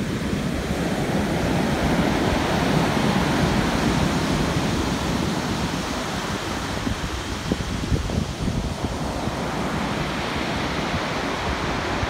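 Rough Black Sea surf breaking and washing far up a beach, a steady rushing wash that swells to its loudest a few seconds in.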